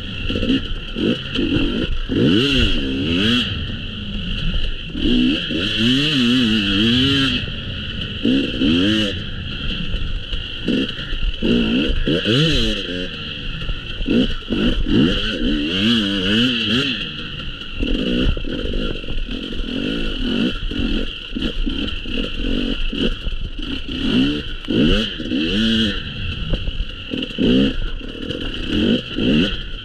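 Dirt bike engines revving hard and falling back again and again, the pitch climbing and dropping every second or two as the bikes are ridden round the track.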